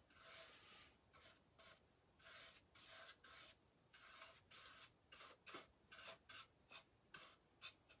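Very faint, repeated strokes of a brush spreading clear coat over decoupage paper on a wooden drawer side, about two strokes a second.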